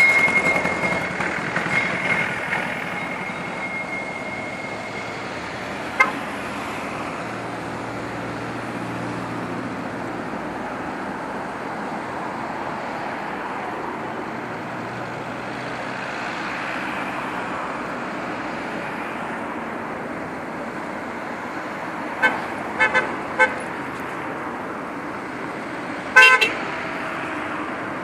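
Cars in a slow procession passing with a steady road noise, their drivers sounding car horns: a held high tone dies away in the first couple of seconds, a short toot about six seconds in, a few short toots about three quarters of the way through, and a louder horn blast near the end.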